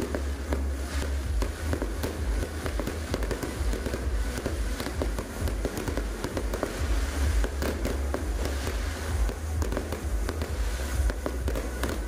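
Aerial fireworks display: a dense, continuous barrage of shells bursting, with many overlapping bangs and crackling over a heavy low rumble.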